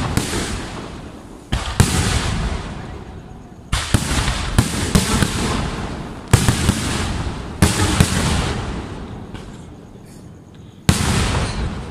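Aerial fireworks shells bursting overhead: about ten loud bangs in quick succession, some in close pairs, each trailing off over a second or two.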